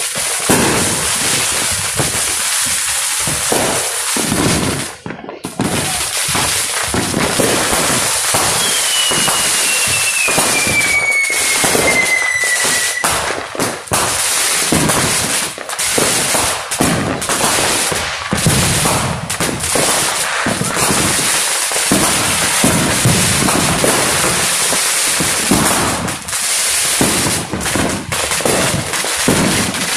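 A steady barrage of neighbourhood fireworks and firecrackers, popping and crackling without a break. A long whistle falls in pitch about nine seconds in and fades out around thirteen seconds.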